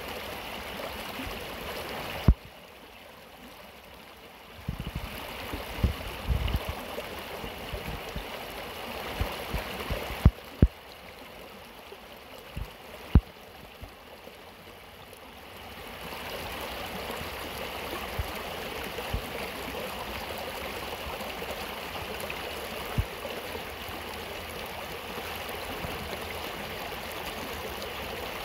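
A small rocky stream rushing and splashing over stones and around a fallen log: a steady wash of running water that drops and rises in level a few times. A few brief low thumps stand out above it.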